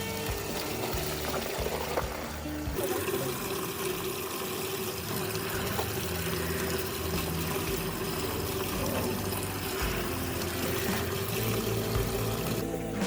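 Water pouring and running, under background music with held notes.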